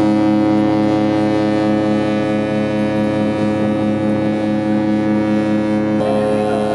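Cruise ship's horn blowing one long, steady blast, a deep chord of several tones. About six seconds in the lowest tone drops out while a higher tone holds on.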